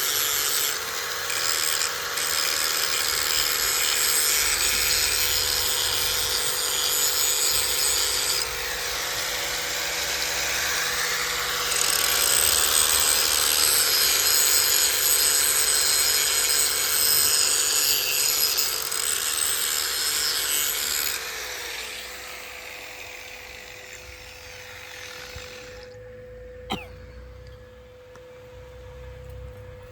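A power tool grinding, a harsh hiss over a steady motor hum. The grinding dies away about 21 seconds in, leaving the hum, and there is one sharp click near the end.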